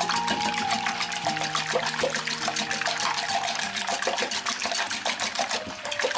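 Wire whisk beating raw eggs in a glass bowl: fast, regular strokes, about seven or eight a second, that stop suddenly near the end.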